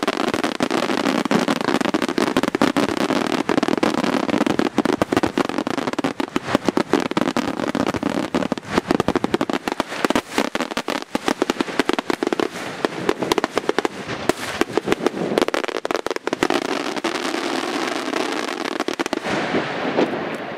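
Aerial fireworks display: a dense barrage of shell bursts, many sharp reports in quick succession over a continuous rumbling crackle. It thins out near the end.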